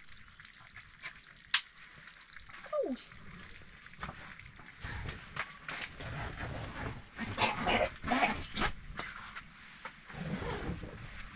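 Handling noises: rustling and knocks as a canvas tent flap and plastic floor sheet are moved, with a sharp click about a second and a half in and a short falling whine about three seconds in.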